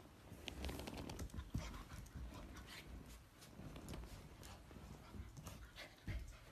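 A small puppy playing with a plush toy on carpet: faint scuffling with scattered small clicks and quiet dog sounds.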